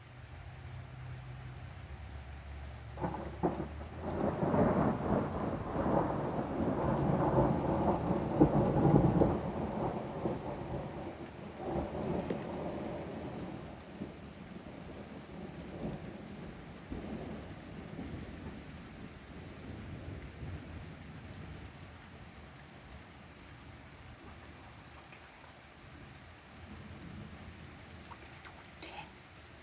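A peal of thunder over steady rain: a low rumble builds into a loud, crackling roll about three seconds in, is loudest a few seconds later, then rumbles away over the next several seconds while the rain keeps falling.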